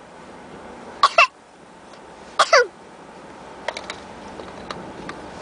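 A child's put-on fake coughs: two quick double coughs with a falling voiced pitch, about a second and a half apart.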